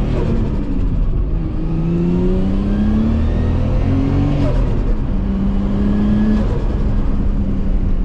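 Nissan Skyline RB25 straight-six engine heard from inside the cabin, accelerating on the road. Its pitch climbs three times and drops back between climbs as the driver shifts gears.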